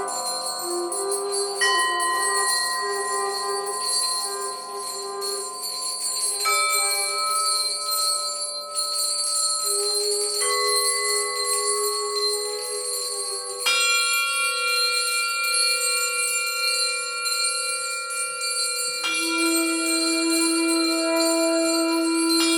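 Struck metal bells and cymbals ringing with long sustain, a new strike about every four or five seconds, five in all, each adding a cluster of high ringing tones over the last. A transverse flute plays slow wavering notes beneath them in the first half.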